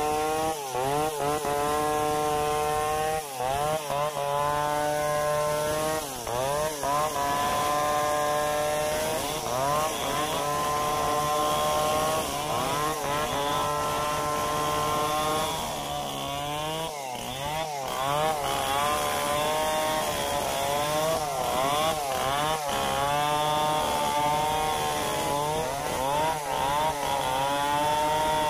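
Stihl 070 two-stroke chainsaw at full throttle, ripping lengthwise along the grain through hard acacia mangium logs. The engine pitch keeps sagging and recovering as the chain bites into the wood, with a brief drop about halfway through.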